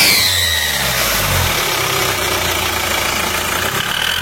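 An engine running steadily, its low note shifting a little in the first second or so before settling.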